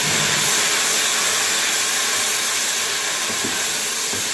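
Beef stock sizzling hard as it hits hot oil and fried onions in a pressure cooker, a loud steady hiss that eases a little near the end.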